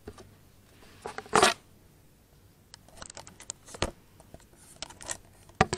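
Close handling noise on the microphone: scattered rustles, scrapes and knocks as the camera is bumped and moved about. The loudest is a short rustle about a second and a half in, with sharp knocks near the middle and near the end.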